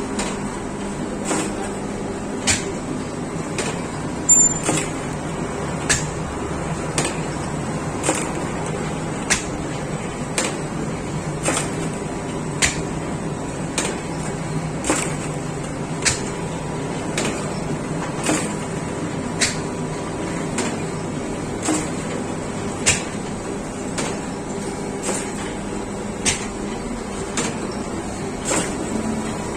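Bakery machinery running with a steady hum, with a sharp click or knock repeating evenly about once a second.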